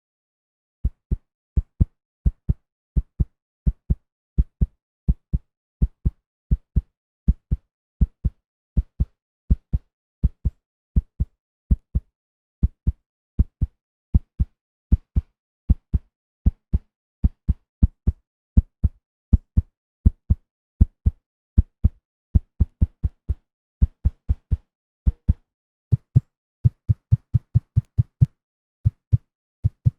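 Human heartbeat sound effect: paired low thumps (lub-dub) repeating a little faster than once a second, quickening over the last few seconds.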